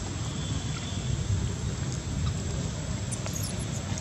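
Steady outdoor background noise with a low, fluctuating rumble, like wind or distant traffic on the microphone; no clear monkey call stands out.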